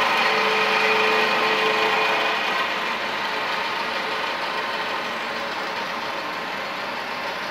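Startrite H250A horizontal metal-cutting bandsaw running, its blade sawing through the side walls of rectangular metal tubing under a coolant stream. It makes a steady grinding hiss with a high ringing whine, and the whine fades out about two to three seconds in as the sound eases a little.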